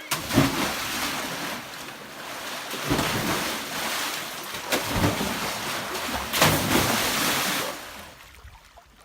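Rushing water of a flowing wadi after rain, with wind buffeting the microphone; the noise swells and falls in surges and dies away about eight seconds in.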